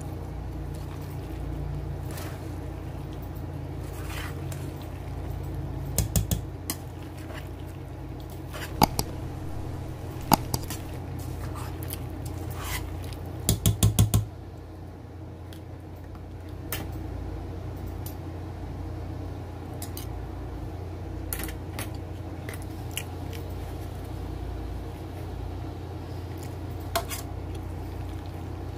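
A spoon mixing mayonnaise-dressed macaroni salad in a stainless steel bowl: soft wet stirring with sharp clinks of the spoon against the bowl, a few single ones and a quick run of about five near the middle, over a steady low hum.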